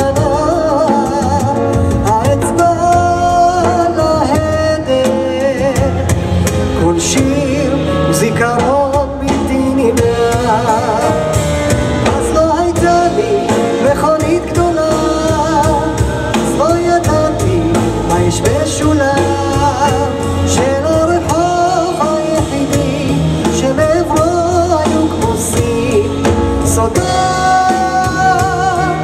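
Live band music: a man singing with vibrato over a stage keyboard and upright double bass.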